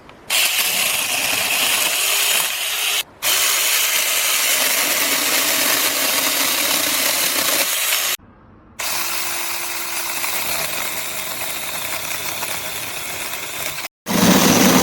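Small cordless 6-inch electric mini chainsaw running, a steady noisy buzz in several stretches broken by sudden short drop-outs about three, eight and fourteen seconds in.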